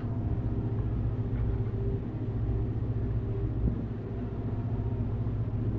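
Gas burner under a black cast-iron pot running with a steady low rumble and hum while the pot simmers.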